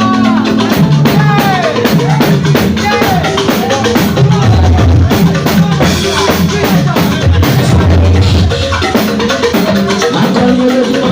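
Live band music with a steady drum-kit beat and a heavy bass line, and a voice gliding through sung phrases in the first few seconds.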